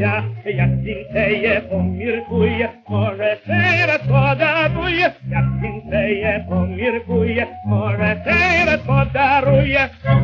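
A tenor singing a Ukrainian folk song with a wide vibrato, over orchestral accompaniment with a pulsing bass line, played from a 1928 Columbia 78 rpm record.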